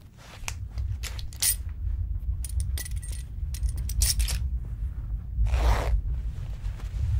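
Clothes being taken off: short fabric rustles and small sharp clinks, with a half-second swish of cloth about five and a half seconds in, over a low steady rumble that rises about half a second in.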